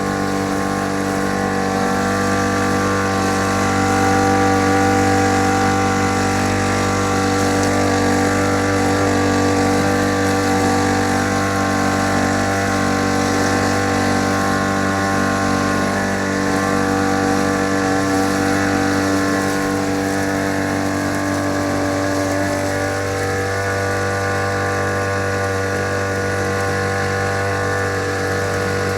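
Small petrol engine of a grass-cutting machine running steadily at a constant speed.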